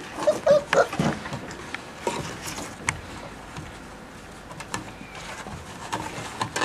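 Border collie puppies giving a few short yips and whines about half a second in, followed by scattered scratching and rustling.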